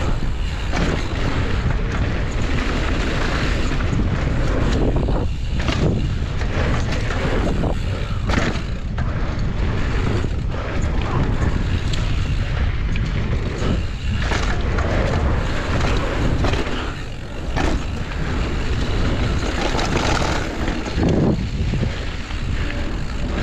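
Wind rushing over an action camera's microphone as a mountain bike descends a dirt jump trail at speed, its tyres rolling over hardpacked dirt and gravel. Knocks and rattles come from the bike over bumps and landings every few seconds.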